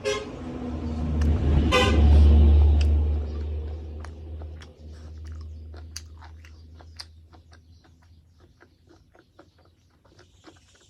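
A motor vehicle passes, sounding its horn twice in short toots, once right at the start and again about two seconds in. Its deep engine rumble swells and then fades over the next few seconds. Faint scattered clicks follow.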